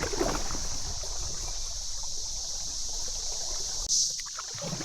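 Creek water rushing steadily past a kayak running a fast riffle, with a brief splash about four seconds in.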